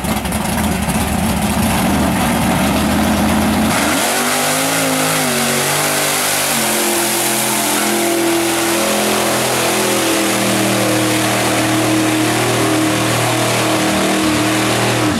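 Big-block Ford V8 of a mud truck rumbling at low revs, then revving hard about four seconds in and held high near full throttle as the paddle tires churn through the mud, over a steady rush of thrown mud.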